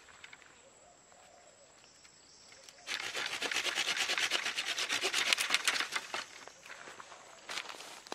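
Folding saw tearing through a clump of grass stems and roots at ground level: fast rasping strokes start about three seconds in, run for a few seconds, then fade, with a few more strokes near the end.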